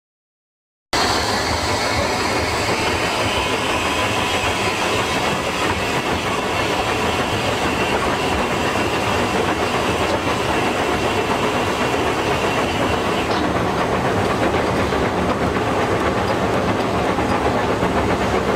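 Steam rack locomotive running, heard from inside its cab: a loud, steady din of steam hiss, rumbling and rail clatter that starts abruptly about a second in.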